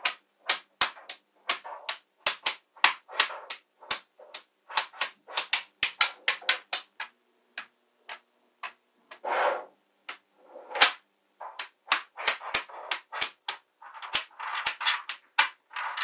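Small magnetic balls clicking sharply as they snap onto one another and onto the grid, in quick irregular taps, several a second. About nine seconds in there is a longer, softer rustle.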